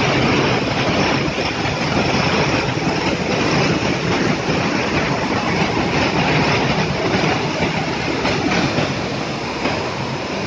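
A train passing over a railway bridge, a loud, steady noise of wheels running on the rails.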